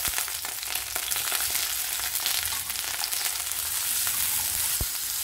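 Tomato wedges sizzling and crackling in a little hot oil in a ceramic-coated frying pan, as a wooden spatula turns them, with one knock against the pan near the end.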